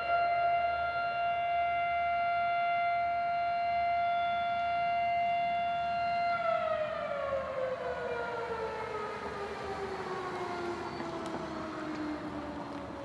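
Outdoor civil defense warning siren sounding its test: a single steady tone, then about six seconds in the power cuts and the rotor winds down, the pitch falling slowly.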